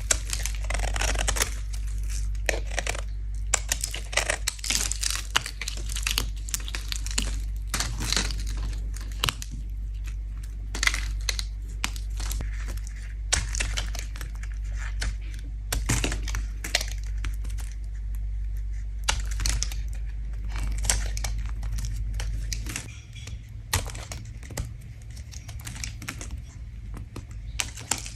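A bar of soap being scraped: dense, irregular crisp scratching and crackling strokes as the soap shaves off.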